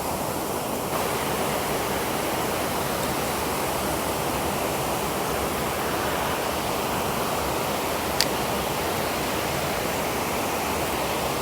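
Steady rush of flowing creek water, with a single brief click about eight seconds in.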